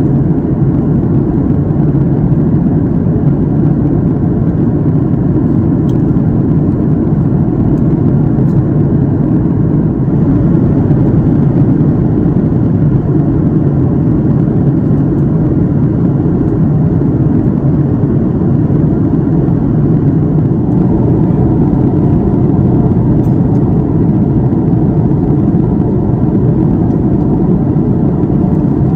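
Steady cabin noise of a Boeing 737 MAX 8 in cruise, heard from a window seat: a deep, even roar of rushing air and the CFM LEAP-1B turbofan engines.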